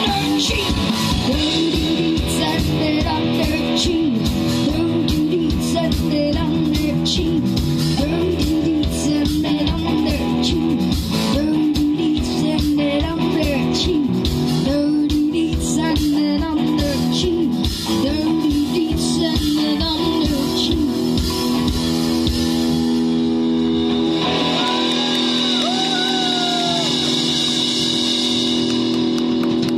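Live rock band playing through a PA: electric guitars and a drum kit, with a woman singing the lead. About 23 seconds in, the drums and low end drop out, leaving held guitar chords under the voice.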